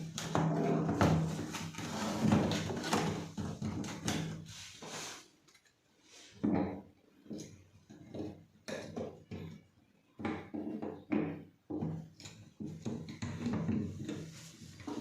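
Irregular knocks and clicks of parts being handled during work on a water purifier, dense at first, thinning after a short lull about six seconds in.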